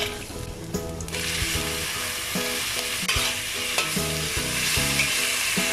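Sliced fresh shiitake mushrooms and minced ginger frying in hot oil in a wok. A steady sizzle sets in suddenly about a second in, as the mushrooms go in, and they are stirred with a metal spatula.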